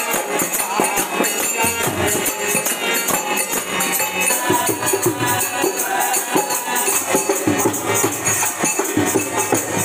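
Devotional music: a dholak barrel drum played by hand in a quick, steady rhythm, with a high metallic jingling over it. Voices singing come in from about halfway.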